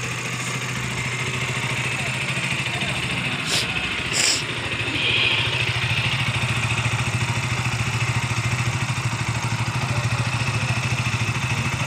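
KTM Duke 125's single-cylinder engine idling steadily, with two brief hissing noises about three and a half and four seconds in.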